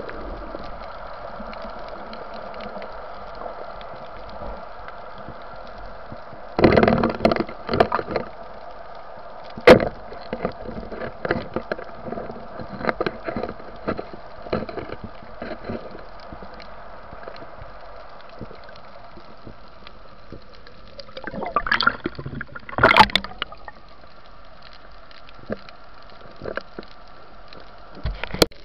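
Underwater sound picked up through a diving camera: a steady hum with water noise, broken by short loud bursts of bubbling and knocks about 7 seconds in, again near 10 seconds, and a longer cluster a little past the 20-second mark.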